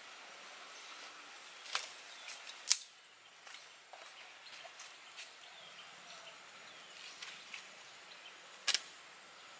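Small wood campfire crackling, with three sharp pops standing out over quieter ticks; the loudest comes a little under a third of the way in and another near the end.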